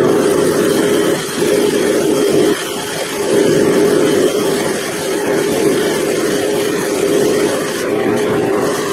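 Bench grinder's wire wheel spinning with a steel cold chisel held against it to clean the metal: a steady motor hum under a scratchy hiss, easing off briefly twice as the chisel is moved.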